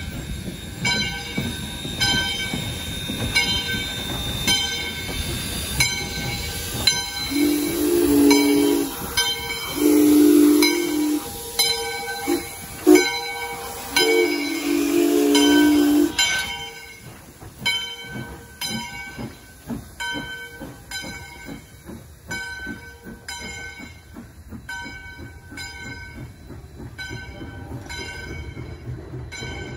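A steam locomotive sounds its chime whistle in two long blasts, short toots and a final long blast, the grade-crossing signal pattern, while its bell rings at a steady pace. The locomotive's exhaust chuffs and steam hiss run underneath and fade as it goes by.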